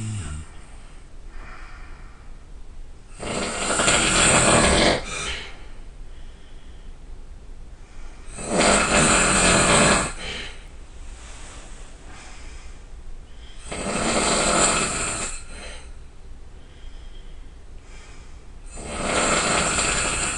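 A person snoring loudly: four long snores about five seconds apart, each lasting a second or two.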